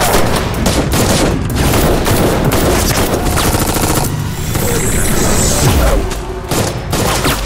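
Rapid automatic rifle fire, many shots overlapping almost without a break.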